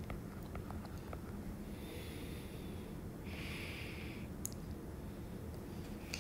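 Steady low microphone hum with a few faint taps near the start and one nasal breath lasting about a second a little past the middle.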